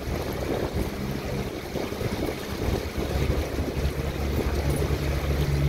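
Boat motor running steadily with a low hum, over the wash of water along the hull.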